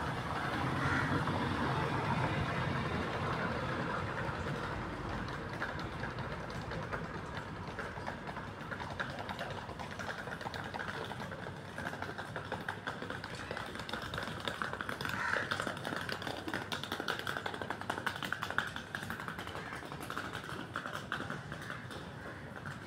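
Tabby kitten crunching dry kibble from a plastic bowl: a fast run of small crunches, thickest in the second half, over a steady low background rumble.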